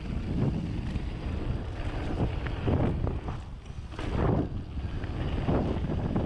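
Wind buffeting the microphone over the rolling rumble of a Rocky Mountain Instinct full-suspension mountain bike descending a loose dirt and gravel trail, with irregular rattles and crunches as the tyres hit rocks and bumps.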